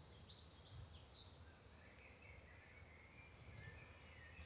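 Near silence, with a few faint bird chirps, most of them in the first second.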